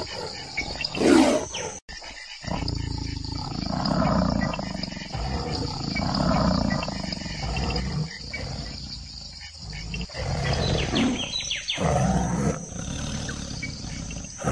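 Tiger growls and snarling roars from a recording, not a live animal. Two sharp loud snarls open the clip, then comes a long run of rumbling growls, a brief break about ten seconds in, and more growling after.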